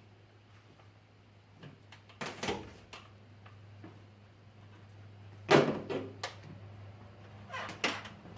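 A lock-strip tool working a chrome lock strip into the rubber window gasket: a few short scrapes and knocks, the loudest about five and a half seconds in, over a steady low hum.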